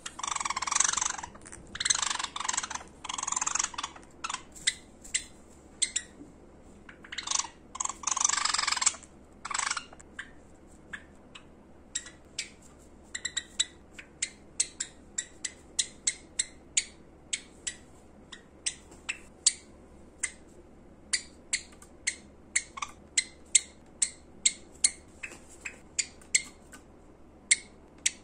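Pet Java sparrow vocalising: dense bursts of rapid, high-pitched chattering song in the first ten seconds, then a long run of short sharp chirps at about two to three a second.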